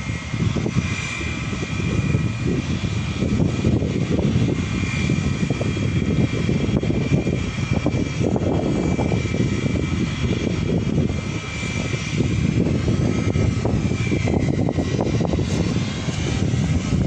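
Jet airliner's engines running on the runway: a steady high whine over a low rumble.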